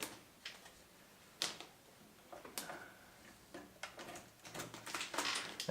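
A few sharp plastic clicks and light handling noise as a second RAM stick is lined up in the motherboard's memory slot, with two clearer clicks about a second and a half and two and a half seconds in.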